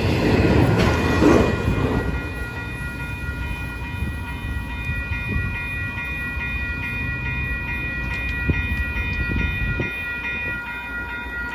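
Double-stack intermodal freight cars rumbling and clattering past close by, the noise dropping after about two seconds as the end of the train recedes into a fainter rumble with scattered wheel clicks. From about three seconds in, a grade-crossing warning bell rings steadily.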